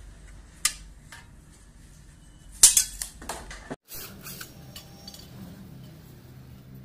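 Sharp metallic clicks and clacks of a latch and aluminium window-frame parts being handled: a single click about half a second in, then a louder run of clacks around the middle. A few faint taps follow near the end, with no drill running yet.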